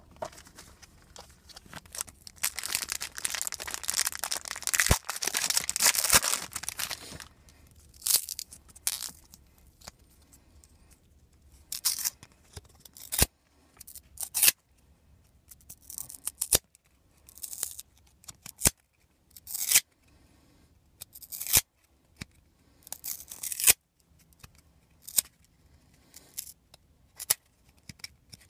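A basketball trading-card pack wrapper being torn open with a long crinkling rip, followed by short swishes and clicks as the cards are slid off one another in the hand, about one every second or two.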